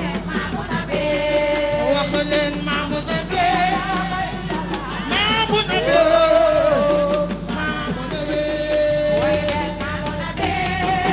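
A woman singing with long, wavering melodic lines over hand drums, live on stage.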